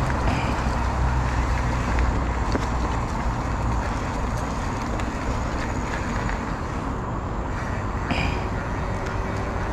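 Motorcycle riding along at steady speed: engine and road noise under heavy wind rushing over the microphone, with a short brighter hiss about eight seconds in.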